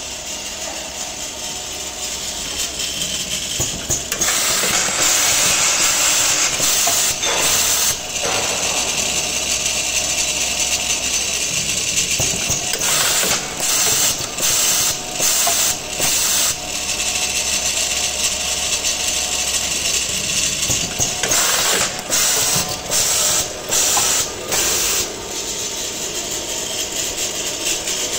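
Automatic tapping machine running, its spindle cutting threads into hex nuts fed on an indexing table, with a steady mechanical clatter. A loud hiss comes and goes over it in spells, breaking into short repeated bursts in the middle and again later on.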